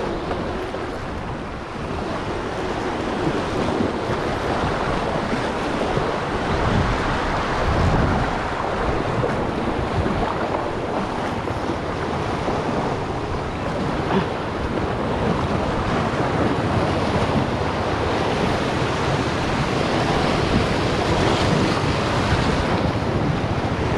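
Sea waves washing over and breaking against shoreline rocks, with wind buffeting the microphone; the surge rises and falls every few seconds.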